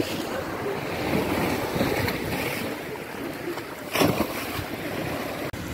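Choppy sea water washing and lapping close by, with wind buffeting the microphone. There is a brief loud bump about four seconds in.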